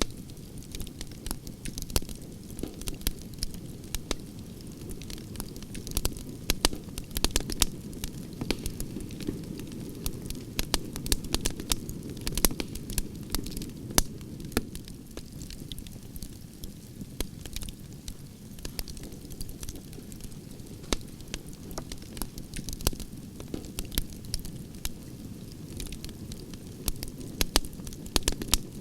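Burning logs in a wood fire: a steady low rush of flame with frequent, irregular sharp crackles and pops.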